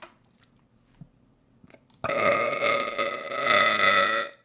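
A woman's long, drawn-out burp, starting about two seconds in and lasting a little over two seconds, with a steady pitch.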